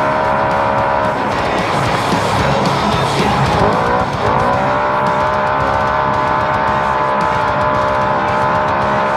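Naturally aspirated side-by-side race UTV's engine running hard at high, steady revs. From about one to four seconds in it turns rough as the revs drop and waver over the terrain, then climbs back up and holds steady.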